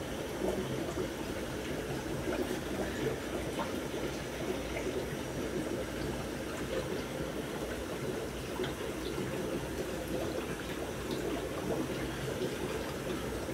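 Steady trickle of water from an aquarium's filter, with a few faint small ticks.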